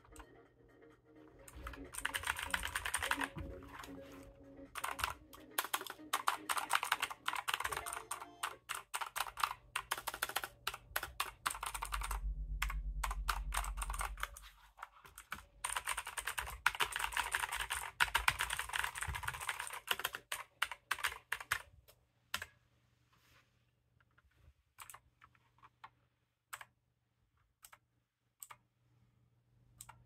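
Fast typing on a White Shark Commandos Elite mechanical keyboard with clicky blue switches: a rapid, dense run of key clicks. It breaks for a few seconds with a low rumble around the middle, then thins to scattered single key presses over the last several seconds.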